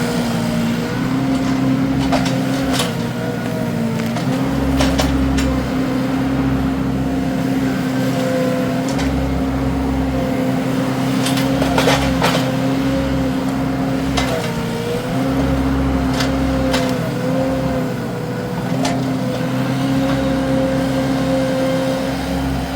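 Wacker SM120 mini skid steer's engine running steadily at high revs, its pitch dipping briefly several times as the hydraulics take load, with sharp knocks now and then from the machine working.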